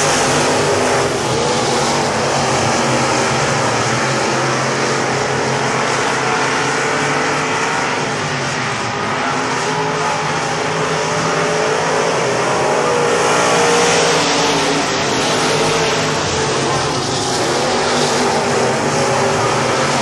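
Pack of dirt-track stock cars racing, several engines running hard at once, their pitches rising and falling as the cars pass.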